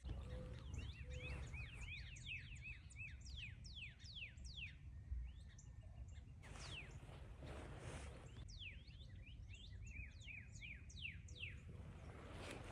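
Birds calling: many quick, downward-sweeping chirps overlapping one another, in two spells with a short lull around the middle, over a low steady rumble.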